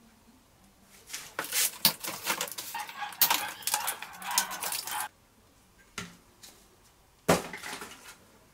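Unpacking noises: a few seconds of rustling, scraping and clattering of packing material being handled, then a sharp click and, near the end, a louder sharp snap or knock.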